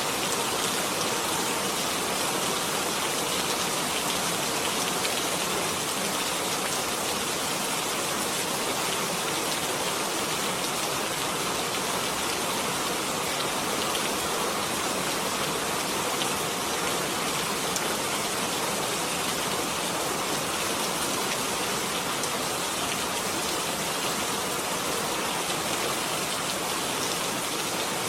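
Steady rain, a dense even hiss of many drops hitting a surface, with faint scattered drop ticks.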